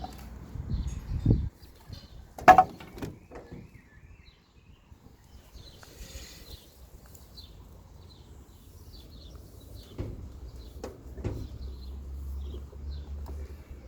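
A few sharp knocks and clunks, the loudest about two and a half seconds in, with a low rumble in the first second and birds chirping faintly throughout.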